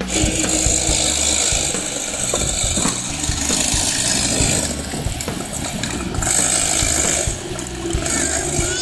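Small two-stroke go-kart engine, a Comer 50, running at low speed with a busy mechanical rattle, mixed with the whine and clatter of a plastic battery-powered ride-on car.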